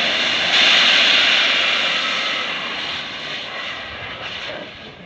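Open gas well blowout: high-pressure gas jetting uncontrolled from the well with a steady hiss that grows slightly louder about half a second in, then fades gradually.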